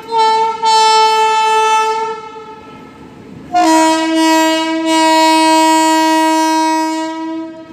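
WAP-7 electric locomotive's horn sounding two blasts: a higher-pitched one of about two and a half seconds, broken briefly at its start, then after a short pause a longer, lower-pitched one of about four seconds.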